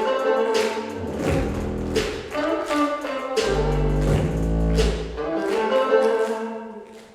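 Recorded backing music for a dance routine with a steady beat and sustained orchestral layers, fading out near the end.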